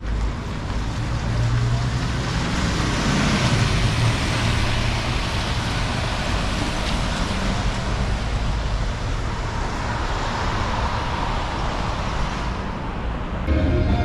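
Street traffic noise, with a city bus's engine rumbling close by during the first few seconds and road traffic hissing steadily after that. Near the end it gives way to a violin playing.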